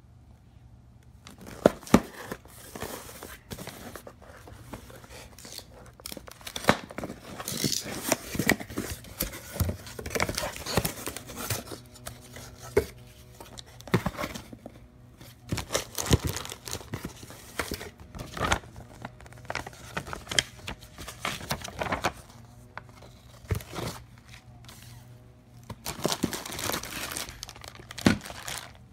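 Cardboard box packaging and the clear plastic bag around a blower being handled, with crinkling, rustling and tearing and many sharp clicks and knocks. It starts about a second in, and the two loudest knocks come just after.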